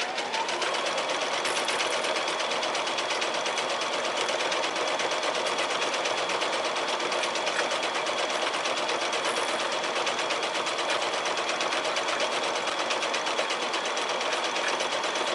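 Domestic sewing machine started with its start-stop button rather than the foot pedal, its motor whine rising over the first second to a steady sewing speed. It then runs steadily with the fast, even tick of the needle, quilting a serpentine stitch.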